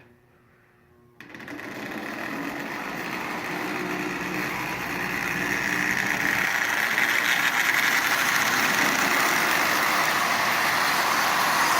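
O-gauge Marx Commodore Vanderbilt tin toy locomotive with a transplanted double reduction electric motor starting up about a second in and running on three-rail track, pulling a string of tin lithographed cars. The steady mechanical running noise grows louder throughout.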